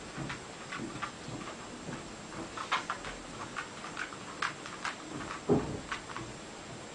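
A dog moving about, making irregular light clicks and taps, with one louder thump about five and a half seconds in, over a steady background hiss.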